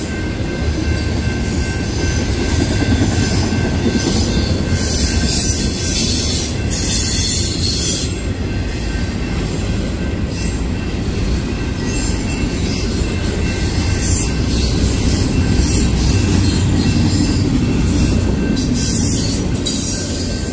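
Double-stack intermodal well cars of a freight train rolling past close by: a steady rumble of steel wheels on rail, with a thin, steady high-pitched wheel squeal and stretches of louder high-pitched hiss coming and going.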